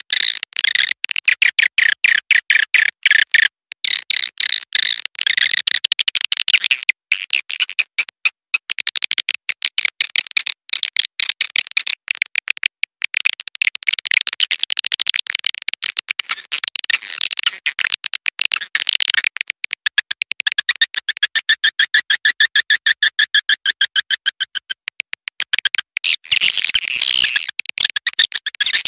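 Swiftlet call track: dense trains of rapid, short, high chirps and twitters, with a few brief breaks. It is the kind of lure sound played to call walet swiftlets in.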